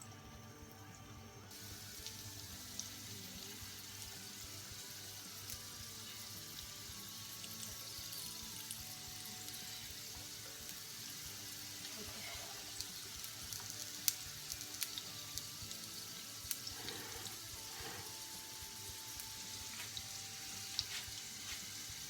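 Gyoza frying in oil in a hot pan: a steady sizzle that starts about a second and a half in, with scattered pops and crackles.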